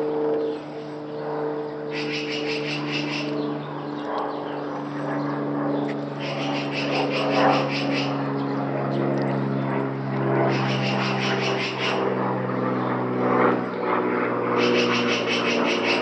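A propeller aircraft drones overhead, its pitch sinking slowly as it passes. About every four seconds a black-billed magpie gives a burst of rapid, harsh rattling chatter, the alarm call of birds mobbing a cat near their nest.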